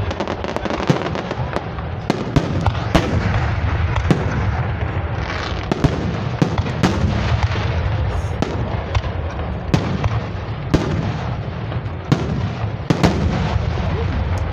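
Aerial fireworks shells bursting in quick, irregular succession: many sharp bangs over a continuous crackling rumble.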